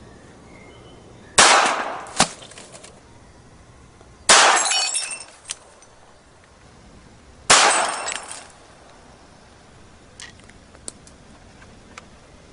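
Ekol Agent blank-firing gas pistol fired three times, about three seconds apart, each shot a sharp crack with a ringing tail of about a second. A smaller sharp click follows the first shot, and a few light ticks come near the end.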